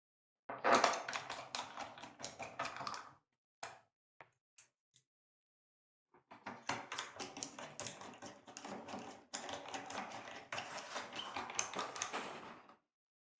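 Rapid clicking and rattling of a screwdriver driving the laptop's base-cover screws back in, in two bursts with a pause of a few seconds between.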